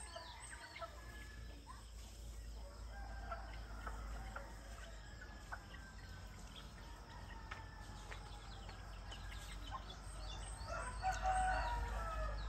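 Roosters crowing: a faint crow a few seconds in and a louder one near the end, with small birds chirping throughout.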